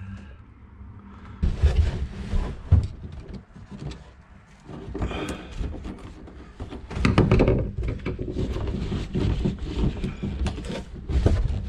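Irregular knocks, clicks and scrapes of a gloved hand working in the cramped bow compartment of a fibreglass sailboat, handling the drain hose and the bolted pad-eye fitting. The sounds come in several spells, the loudest about seven seconds in.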